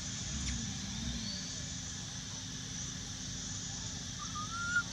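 Steady outdoor background hiss and low hum, with a short rising whistle-like animal call about four seconds in.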